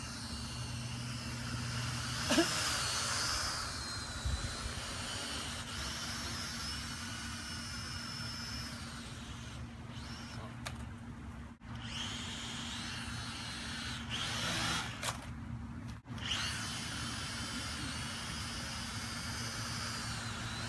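UDI quadcopter's small electric motors and propellers whining, the pitch rising and falling as the throttle changes.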